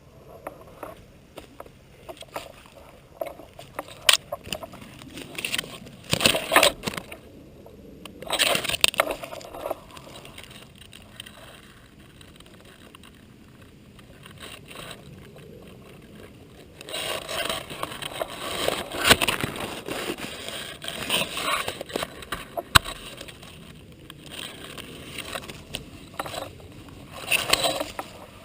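Irregular rustling and scraping noises of movement, thicker in the second half, with a single sharp click about 23 seconds in.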